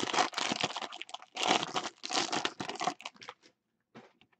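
Foil wrapper of a baseball card pack being crinkled and torn open by hand, in loud crackly bursts that stop about three seconds in. A few faint ticks follow near the end.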